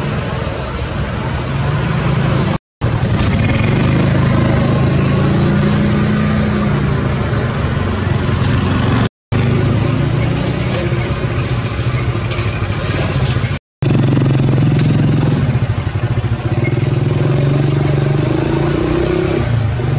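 A motor engine running steadily with small shifts in pitch, cutting out abruptly three times for a split second.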